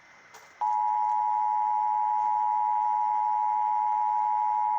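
Emergency Alert System attention signal: a steady two-tone beep (853 Hz and 960 Hz sounded together) starting about half a second in, the alert that precedes the spoken message of a required monthly test.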